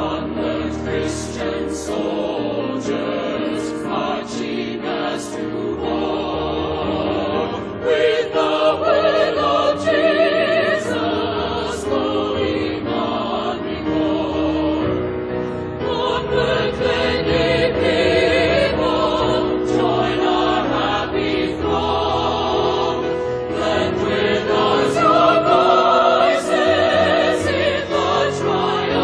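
Choir singing a hymn with vibrato, over sustained accompaniment.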